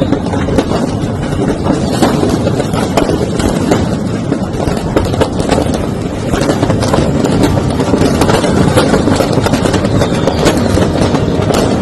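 Firecrackers popping and crackling in rapid, irregular succession over a dense, steady rumble as a fireworks shop burns.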